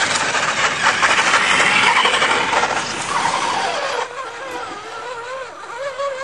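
Electric RC scale trucks driving: motor and gear whine mixed with tyres on the dirt and leaf-litter. About four seconds in the sound cuts to a quieter, wavering whine as a crawler climbs slowly over a dirt mound.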